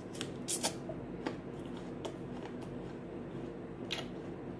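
Raw green apple being bitten and chewed close to the microphone: irregular crisp crunches, the loudest near the end.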